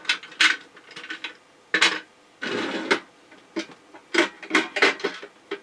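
Small tools and driver bits being handled: irregular clicks and rattles, with a short scrape about two and a half seconds in.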